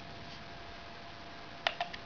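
Two sharp plastic clicks in quick succession near the end, with a fainter third, as a belt clip is snapped onto the plastic sheath of a Mora Bushcraft Survival knife. A faint steady hum underneath.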